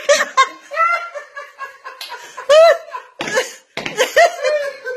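A woman laughing in repeated short, high-pitched giggling bursts.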